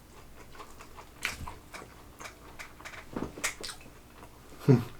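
Close-up biting and chewing of crunchy Korean fried chicken, with scattered crackly crunches. A short low vocal sound comes near the end.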